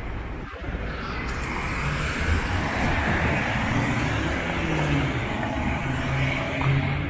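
Steady traffic noise of cars running on a city street.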